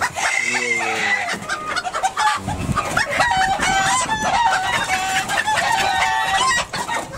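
Chickens in a coop clucking and squawking. Short calls follow each other quickly from about three seconds in, as a small bantam is grabbed by hand inside the coop.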